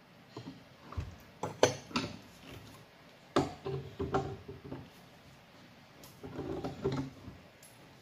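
PVC pipe fittings being handled and fitted together: a series of irregular plastic knocks and clatters, with a few short squeaks as the joints are worked tight.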